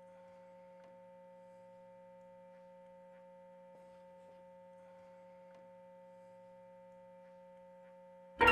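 A faint, steady electrical hum from the guitar rig, a few fixed tones held without change. Near the end, loud guitar playing starts abruptly.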